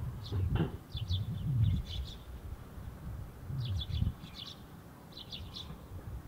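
Sparrows chirping in quick clusters of short high chirps, one spell in the first two seconds and another in the second half, over a steady low rumble.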